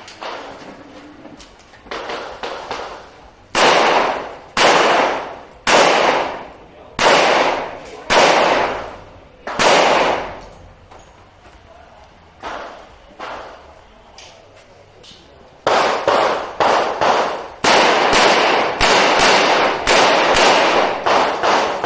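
Revolver shots fired in strings, each with an echoing tail. Six loud shots come about a second apart, then there is a pause with a few fainter shots, and a faster run of shots follows near the end.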